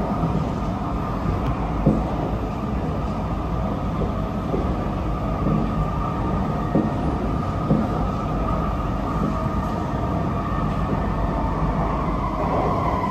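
Singapore MRT East-West Line train running between stations, heard from aboard: a steady rumble with a steady high hum over it and a few short knocks from the track, about two seconds in and again around seven and eight seconds in.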